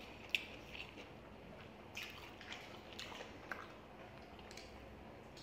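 Close-miked, quiet eating sounds: wet chewing and lip smacks of people eating saucy noodles and fried chicken, with a handful of sharp smacks scattered through.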